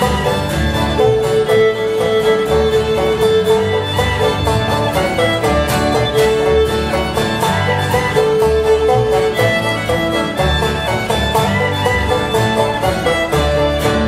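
Old-time string band playing a fiddle tune: fiddle, banjo, acoustic guitar and upright bass together at a steady, driving pace.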